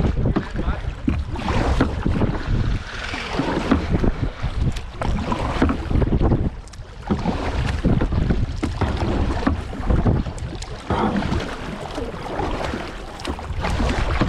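Wind buffeting the microphone with a heavy low rumble, and scattered knocks and clatter from the kayak.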